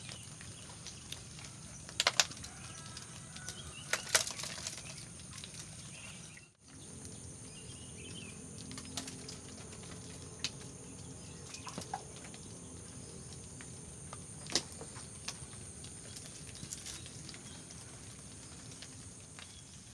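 Freshly caught small fish flapping and flopping on bare dirt after being tipped out of a bamboo fish trap, with a few sharp knocks as the trap is knocked against the ground, two of them near the start about two seconds apart.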